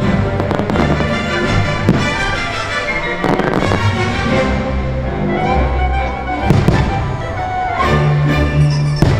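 Aerial firework shells bursting in several sharp bangs scattered through, over the show's holiday music.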